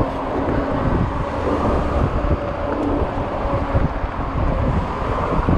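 Wind noise on the microphone over a steady low rumble from a 48-volt fat-tire e-bike rolling along a concrete sidewalk.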